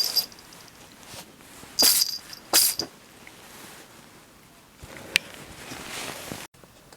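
A cat sneezing: a short sneeze at the start, then two sharp sneezes less than a second apart about two seconds in. A single sharp click follows about five seconds in.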